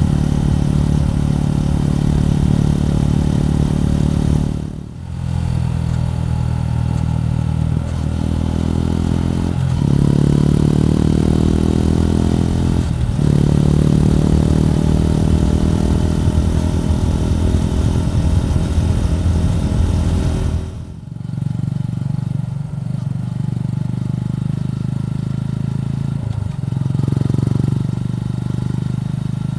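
Suzuki Gixxer 150's single-cylinder four-stroke engine running under way on the road. Its note climbs in steps with short breaks around the middle, as when accelerating and shifting up, and the sound drops out briefly twice.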